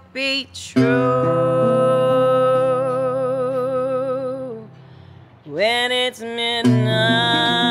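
Woman singing over acoustic guitar chords: she holds one long note with vibrato, drops out briefly, then starts the next phrase about five and a half seconds in.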